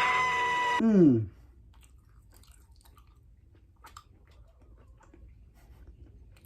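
A loud, steady pitched tone lasting about a second, which then slides down in pitch and stops. Faint chewing of sticky gummy candy follows, with soft mouth clicks.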